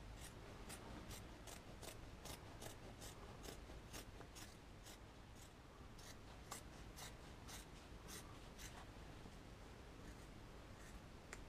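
Household scissors cutting through denim jeans, making faint, crisp snips about two or three a second, evenly paced at first and more scattered later.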